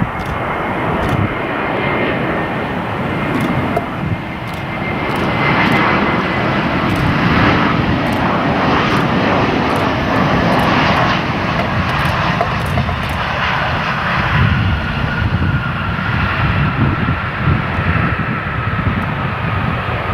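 Jet airliner's engines running loud and close, a steady rush with a thin whine that slowly drops in pitch; the noise swells about five seconds in and stays high.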